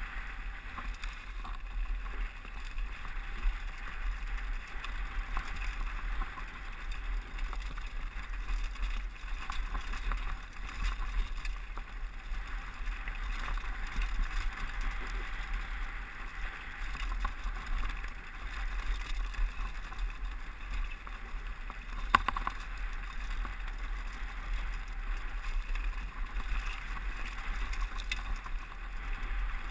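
Mountain bike rolling fast down a rocky gravel trail, recorded by a GoPro: a steady muffled rush and rattle of tyres on loose stones, with wind on the camera and a constant low rumble. One sharp knock from the bike stands out about two-thirds of the way through.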